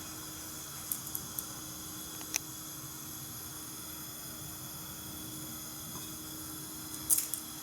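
A few light clicks and taps of hot dogs being pushed onto skewers, over a steady faint hiss and hum.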